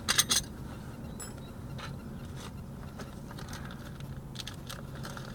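A ratchet wrench clicks sharply a few times at the start, as a fastener on the new tie rod end is snugged down. Scattered light clicks and taps of tools follow.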